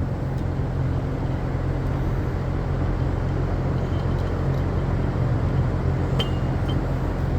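Steady low machine hum running throughout, with two faint light clicks about six seconds in.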